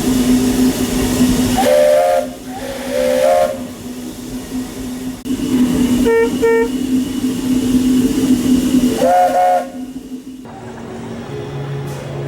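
A Buckeye three-chime steam whistle on the Walt Disney World Railroad locomotive Lilly sounds a series of short blasts: two about a second apart, then two quick toots, then one more. Steady steam hiss and a low hum run under it and die away near the end.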